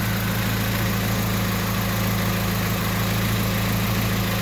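Mitsubishi Lancer 4G92 inline-four engine idling steadily while it warms up with the radiator cap off, the cooling system being bled of air after a thermostat install.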